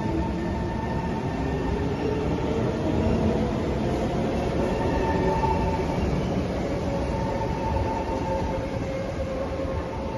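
Singapore MRT train pulling out of the station, its electric traction motors whining in several rising tones as it picks up speed over a steady rumble of wheels on rail. The sound eases slightly near the end as the train draws away.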